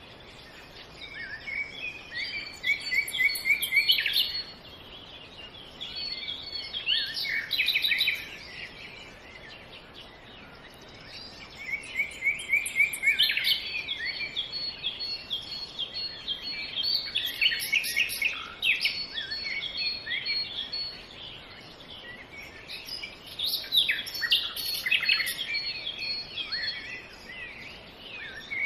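Small songbirds singing in bouts of quick, repeated chirps and trills that pause every few seconds, over a steady background hiss.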